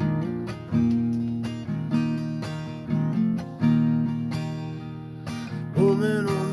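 Acoustic guitar strumming chords as a song intro, with a fresh strum about every second that rings out and fades.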